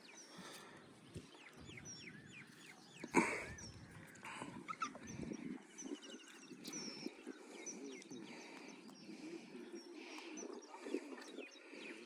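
Many small birds chirping and calling over one another, with one louder, sudden sound about three seconds in.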